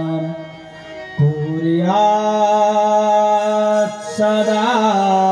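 A man's solo voice singing a Sanskrit dhyana verse to the goddess Durga as a slow melodic chant, each syllable drawn out into long held notes. It falls quieter briefly early on, rises to a higher held note about two seconds in, and makes a short wavering turn near the end.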